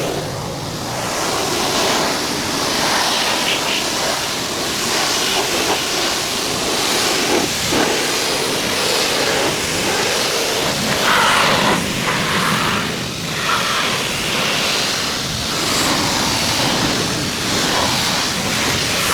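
Steady hissing spray from a cleaning nozzle, swelling and easing a little as it is moved about.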